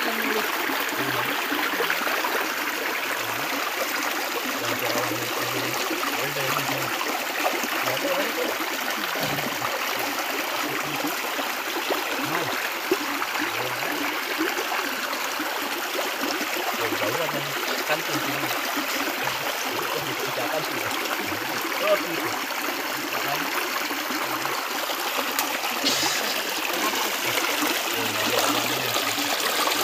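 Shallow rocky river running over stones: a steady rush and trickle of water, with a single short knock a little past the middle.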